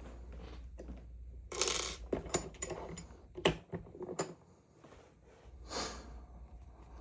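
Light metallic clinks and clicks of a Dom IX dimple lock and steel picking tools being handled, several sharp taps bunched in the middle, with a couple of brief rustles of handling.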